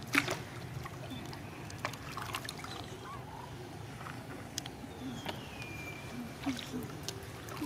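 Water splashing and sloshing lightly as macaques swim through a pond and wade out at its edge, with scattered small splashes. A single high falling whistle sounds about five seconds in.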